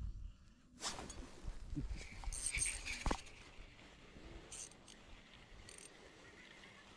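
Quiet handling of an ice-fishing rod, line and small jig: a few light clicks and clinks, the sharpest about three seconds in.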